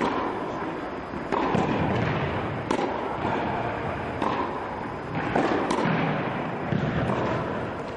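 Tennis balls struck by a racket, about six sharp hits evenly spaced roughly a second and a half apart, each ringing out in a large indoor hall.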